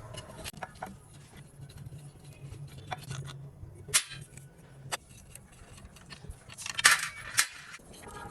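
Metal clinks and sharp knocks, as of tools and hoist parts being handled, with a short scraping burst about seven seconds in over a low steady hum.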